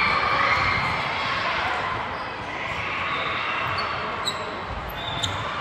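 A ball bouncing repeatedly on an indoor court floor, with short high sneaker squeaks near the end, over crowd chatter.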